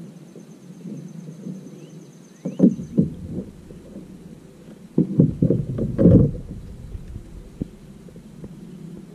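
Dull knocks and thumps in two clusters, about two and a half seconds in and again from about five to six seconds, over a low steady rumble. A faint high trill is heard during the first few seconds.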